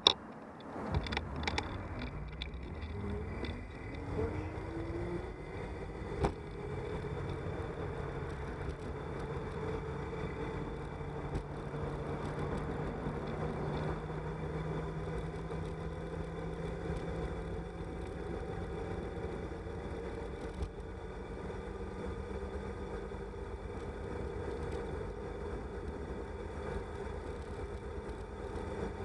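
Wind and road noise from a bicycle rolling downhill, with a whine that rises in pitch over the first few seconds as it gathers speed and then holds steady. A few knocks come near the start and one about six seconds in.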